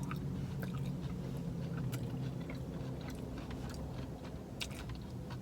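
A person chewing a mouthful of boneless chicken wing close to the microphone, with scattered small wet mouth clicks, over a steady low hum.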